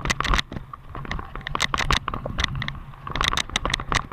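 Mountain bike rattling and clicking as it rolls, with dense irregular clicks over a steady low rumble.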